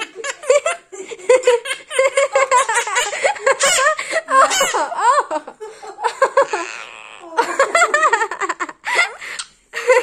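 A young woman giggling and laughing in quick, high-pitched bursts, with a few short pauses.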